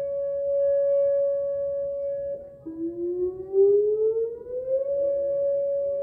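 Whelen WPS 2910 outdoor warning siren sounding a steady tone, heard from inside a house. About two and a half seconds in the tone breaks off, then starts again low and rises over about two seconds back to the steady pitch, with the loudness wavering as it climbs: the siren winding up again on a second activation.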